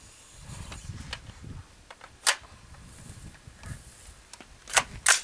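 Sharp metallic clicks of an AR-pattern precision rifle, an LWRC M6A5 SPR, being handled and worked: one click about two seconds in and two in quick succession near the end, with soft rustling of handling before them.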